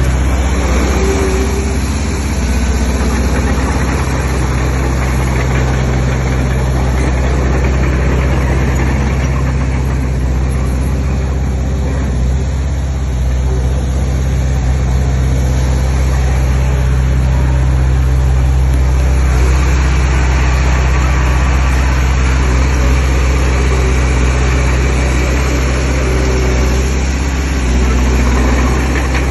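Heavy diesel engine of an earth-moving machine running steadily, with a strong low drone. It sounds a little busier in the upper range from about two-thirds of the way in.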